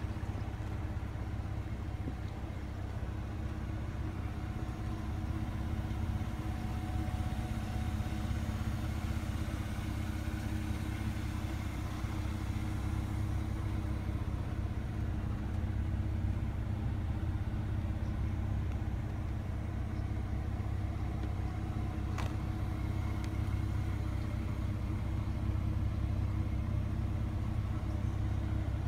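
Morgan Roadster 3.7's V6 engine idling steadily.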